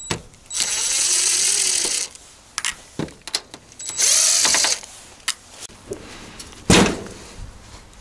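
Cordless drill backing screws out of the outdoor unit's sheet-metal cover of a mini-split heat pump, in two runs, the first about a second and a half and the second under a second, the motor speed wavering. A single loud knock comes near the end.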